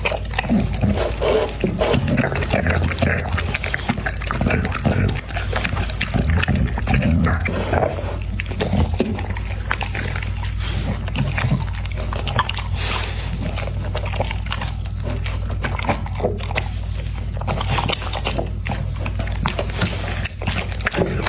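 An American Pocket Bully dog eating noisily: irregular chewing, crunching and mouth smacks that go on throughout.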